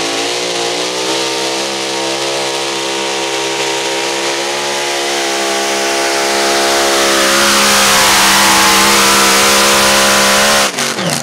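Mini rod pulling tractor's engine running flat out under load while towing the sled. Its pitch holds steady at first, then sinks slowly over the last several seconds as the load builds, and the sound cuts off suddenly near the end.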